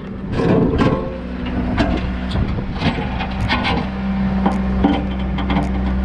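Backhoe engine running steadily, with irregular knocks and scraping as the bucket shifts a broken slab of concrete over gravel.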